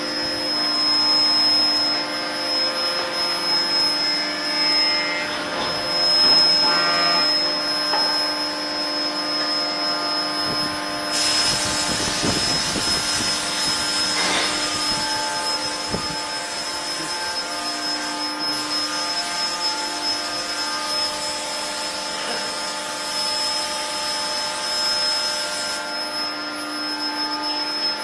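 Multi-station induction heater for round steel bars running: a steady high-pitched whine over a steady lower hum, with a broad hiss joining from about eleven seconds in until near the end.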